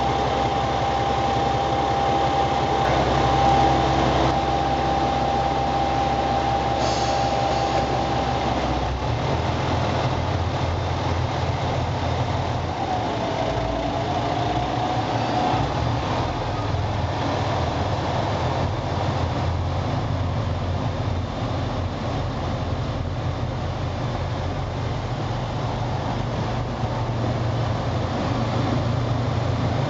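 Diesel railcar train running and pulling away, a steady low engine rumble that changes about nine seconds in as it gets under way, then the cars rolling past. A steady high tone sounds over it for roughly the first eight seconds.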